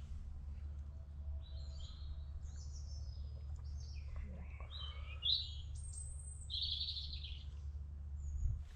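Wild songbirds singing and calling: a scattered series of short chirps and whistled notes, some rising or falling, over a steady low rumble.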